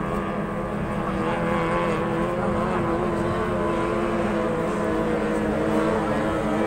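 Engines of racing speedboats running flat out: a steady engine drone whose pitch wavers slowly, growing a little louder about a second and a half in.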